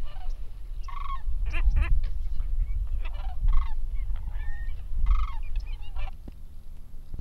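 Geese honking in a loose series of short calls, over a steady low rumble; the calls thin out after about six seconds.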